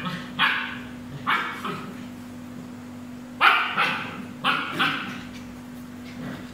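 A puppy barking in play: about seven short barks in small groups, a few near the start and a quicker run of four around the middle.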